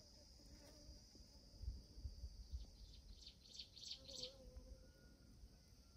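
Faint outdoor ambience: a steady high insect trill that fades about halfway through, a quick cluster of bird chirps about three to four seconds in, and a few low thumps about two seconds in.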